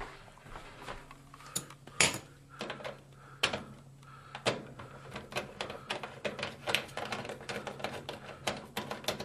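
A socket ratchet clicking in quick, irregular runs as it is swung back and forth on the stove's terminal screws, with a faint steady low hum underneath.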